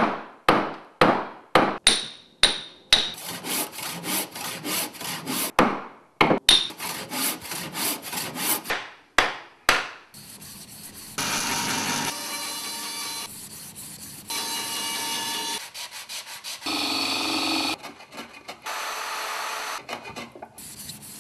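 Hand tools cutting wood: a run of sharp chisel strokes into the wood, about two a second, for the first ten seconds. Then come longer, steady cutting strokes, each a second or two long.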